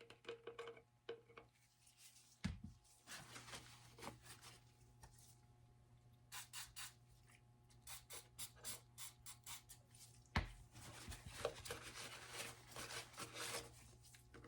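Faint handling noises at a workbench: rubbing, scratching and small clicks, with two sharper knocks, one a few seconds in and one about ten seconds in, over a steady low hum.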